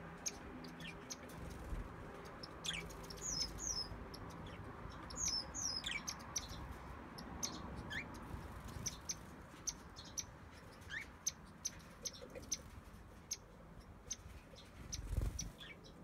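Small aviary birds chirping: scattered short high chirps and ticks, with a few quick downward-sliding calls, and a low thump near the end.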